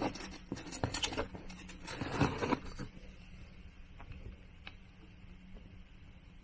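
Rustling and scraping of a hand working in a cardboard box to catch a pet mouse, as irregular scuffs and clicks that are loudest about two seconds in. After about three seconds only a few faint clicks remain.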